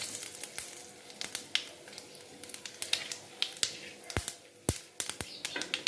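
Whole spices (fennel, nigella, fenugreek, mustard and cumin seeds with a dried red chilli) frying in a little hot oil, crackling with irregular sharp pops over a faint sizzle. The popping is the sign that the tempering is done.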